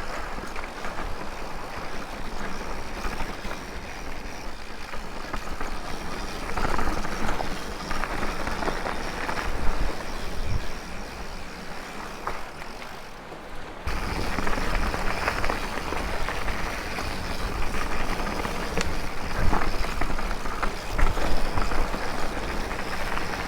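Mountain bike ridden fast along a dirt trail: tyres rumbling over the ground and the bike rattling over bumps, with wind on the microphone.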